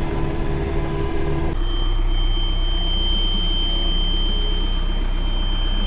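John Deere 4052R tractor's diesel engine running steadily, heard inside the cab. About a second and a half in, a steady high warning tone starts and holds: the dashboard alarm, with the filter soon found completely packed full and the tractor refusing to regenerate, a sign of a clogged diesel particulate filter.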